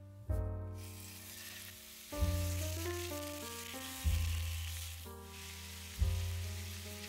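Ground beef sizzling in hot olive oil in a frying pan, the hiss starting just under a second in as the meat hits the oil. Gentle piano music with deep bass notes every couple of seconds plays over it and carries the loudest peaks.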